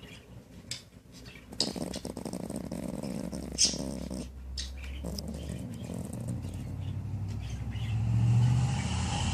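A small dog snoring loudly in its sleep, long low buzzy breaths that grow louder near the end. A few short sharp clicks come in the first few seconds.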